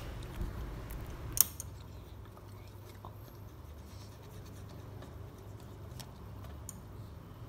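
Pen-style eraser rubbing and scratching lightly on paper, with a sharp click about a second and a half in and a few fainter ticks after.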